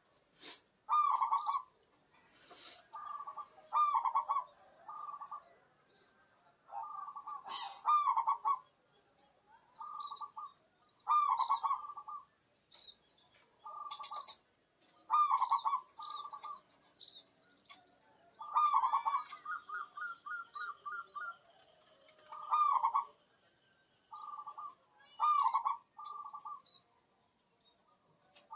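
Zebra dove (perkutut) cooing, repeated coo phrases coming every one to three seconds. Under them runs a steady high-pitched whine, and another bird gives a quick run of chirps about two-thirds of the way through.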